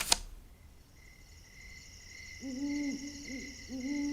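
An owl hooting in a run of low hoots over steady high insect chirping, a night-time sound bed. A brief sharp click comes at the very start.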